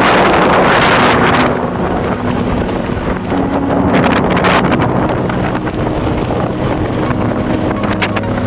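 Wind buffeting the microphone of a camera carried by a moving skier, mixed with skis hissing and scraping over packed snow. It is loudest in the first second and a half, with another swoosh about four seconds in.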